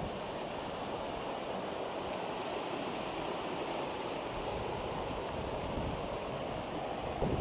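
A steady, even rushing noise with nothing standing out of it.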